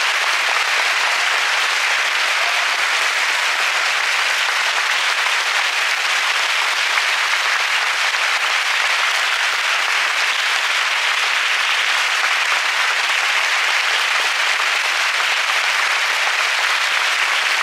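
Large theatre audience applauding, a dense, even clapping that holds steady throughout.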